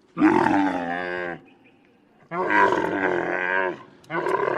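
Camel calling: three drawn-out calls with a wavering pitch, each about a second long with short pauses between. The third starts near the end.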